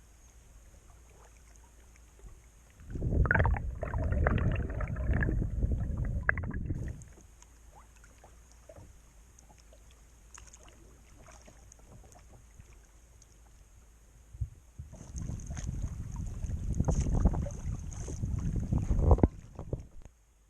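Kayak paddling noise: water splashing and sloshing against the paddle and hull in two spells of a few seconds each, with quiet, lightly ticking stretches between them.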